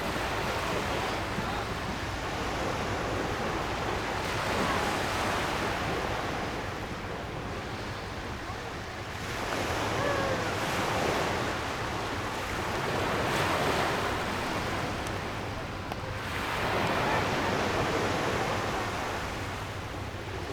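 Public beach ambience: surf washing ashore in swells every few seconds, with faint distant voices of people mixed in.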